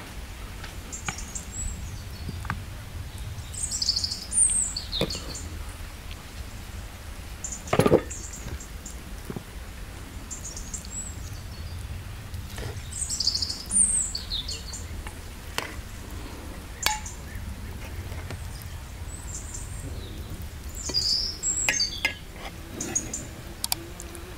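Songbird chirping, a short phrase repeated every eight or nine seconds, over a steady low background rumble, with several light clinks of a metal spoon on an enamel plate and one sharper knock about eight seconds in.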